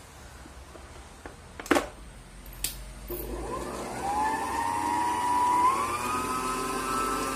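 Two sharp clicks as the electric stand mixer's tilt head is lowered, then its motor starts about three seconds in and whines steadily, rising in pitch as it speeds up and stepping up once more later, as the wire balloon whisk beats six whole eggs.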